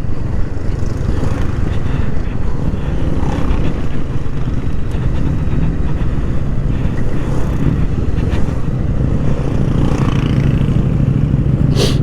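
Honda Rebel 500's parallel-twin engine running steadily at cruising speed while being ridden.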